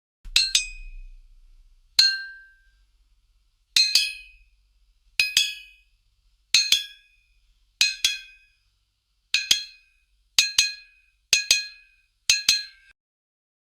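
Ten short, bright 'attention ping' sound effects (pikon-style notification chimes) played one after another, about every second to second and a half. Each is a quick double or triple metallic ping that rings briefly and dies away.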